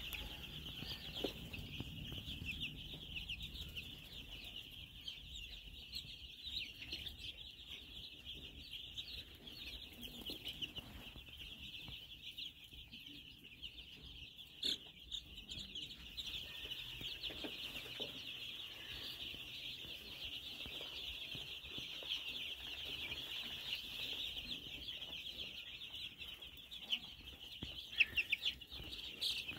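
A brood of baby chicks peeping continuously, many high-pitched peeps overlapping into a steady chorus, with a few louder peeps near the end.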